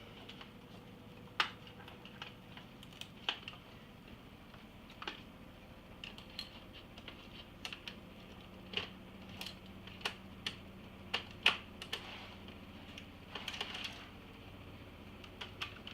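Scattered light clicks and taps at irregular intervals, from small parts and tools being handled while taking apart an iMac G3, over a faint steady hum.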